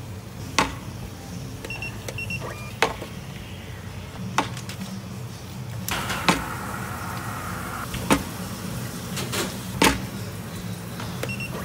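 Paper ice cream cups and a container lid being set down and handled on a countertop digital scale: sharp knocks every couple of seconds, with a few short electronic beeps over a steady low hum.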